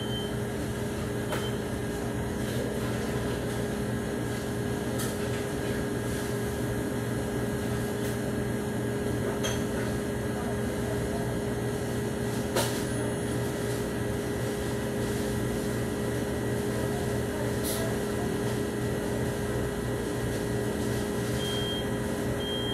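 Steady hum of an idling vehicle, with a couple of faint clicks partway through.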